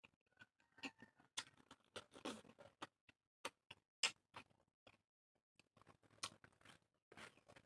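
Faint eating sounds: scattered small wet clicks and smacks of chewing.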